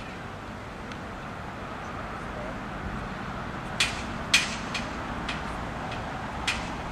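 Steady outdoor background hum of distant road traffic. From about halfway in, a series of short sharp clicks comes roughly every half second: a person's footsteps on a tarmac path.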